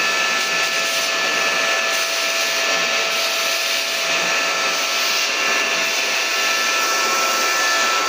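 Kent Vortex 15-litre wet-and-dry vacuum cleaner running steadily, a rush of air with a high motor whine, as its extension tube sucks dust off a ceiling fan blade.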